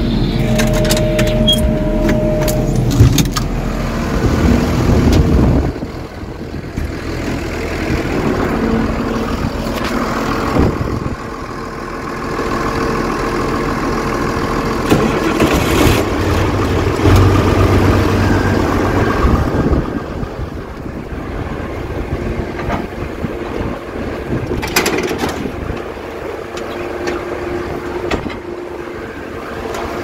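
Oliver 1655 tractor engine running steadily while it drives the grain auger, with the sound shifting as the microphone moves around the machine. A few sharp knocks come through.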